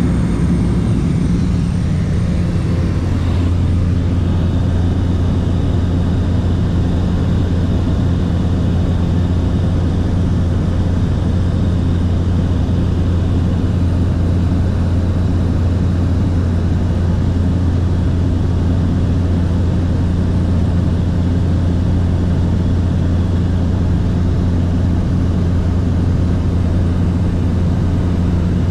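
Steady, unbroken low drone of a light propeller plane's engine and propeller, heard from inside the cabin in flight.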